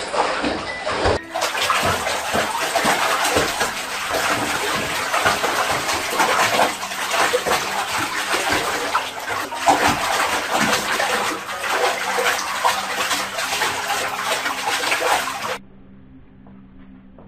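Water running hard into a bathtub, a loud steady splashing rush that starts abruptly about a second in and cuts off suddenly near the end, leaving a faint low hum.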